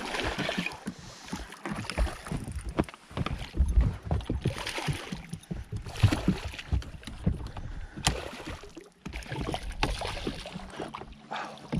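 Hooked smallmouth bass thrashing and splashing at the surface beside the boat, in irregular surges of splashing water, with a few low knocks against the boat.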